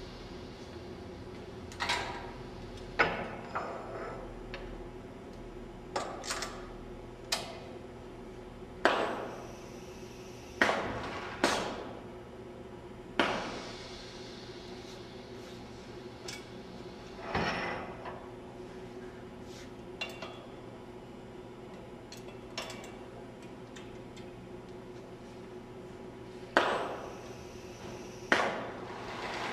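Gantry automation machine working steel parts on its table: about twenty sharp metallic clanks at irregular intervals, each ringing briefly, over a steady machine hum.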